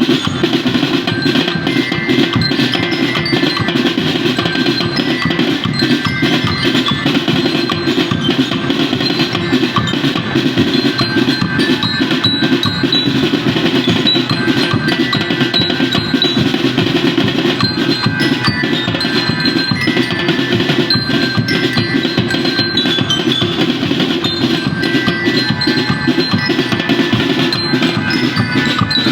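Music with dense, fast percussion and bright bell-like mallet tones over a steady low pulse.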